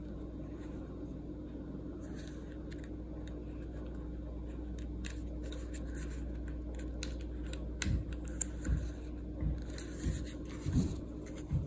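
Dashcam packaging and accessories handled by hand: light rustling, scratching and scattered small clicks, with several soft low knocks in the last few seconds, over a steady low hum.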